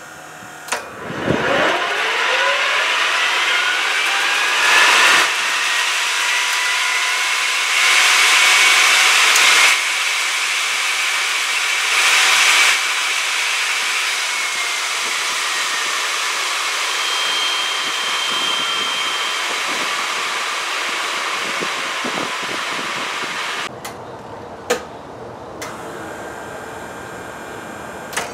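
Fairchild J44 turbojet cranked on a start attempt: a whine rises over the first few seconds and levels off, with three louder rushing surges, then the pitch slowly falls as the engine spins down. Near the end it is quieter, with a couple of clicks.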